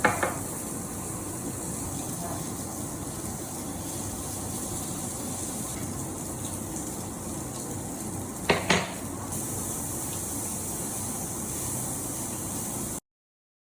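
Steady running hiss with brief clinks of dishware, once at the start and twice in quick succession near the nine-second mark, then cut off suddenly.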